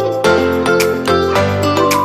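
Instrumental background music: a melody of changing notes over a regular beat.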